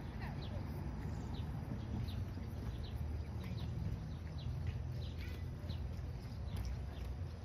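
Small birds chirping outdoors, short downward-sliding notes about two a second, over a steady low rumble.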